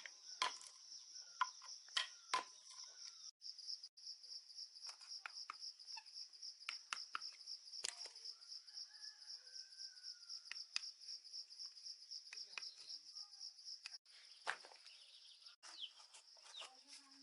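Faint, steady, high-pitched insect trill, pulsing rapidly like a cricket, with scattered light clicks and taps throughout.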